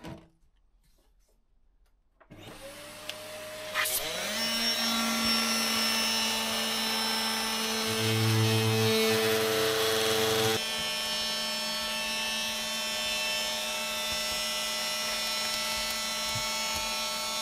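A vacuum cleaner starts and whines up to speed about two seconds in. A handheld power tool cuts into a wooden panel over the top of it until about ten seconds in, then stops, and the vacuum keeps running steadily.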